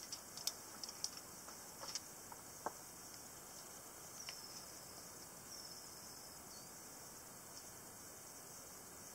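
Faint outdoor ambience: a steady high hiss, several sharp clicks in the first three seconds, and a few short high chirps falling in pitch later on.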